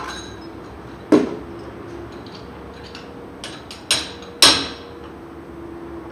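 Hammer blows on steel at a truck's wheel hub during brake work. The two loudest strikes come about a second in and at four and a half seconds, with lighter ones just before the second. The last strike leaves a lingering metallic ring.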